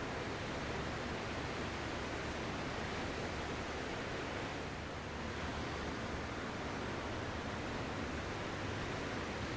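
Ocean surf: a steady, continuous wash of waves, easing slightly about five seconds in.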